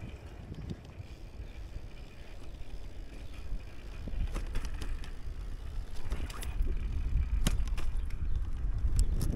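Riding a Brompton folding bicycle: a low rolling and wind rumble that grows louder from about four seconds in, with scattered sharp clicks and knocks in the second half.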